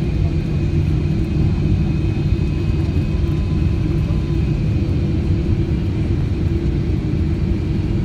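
Steady cabin noise inside a Boeing 777-300ER descending on approach to land: a low rumble of airflow and the GE90 jet engines, with a few faint steady engine tones above it.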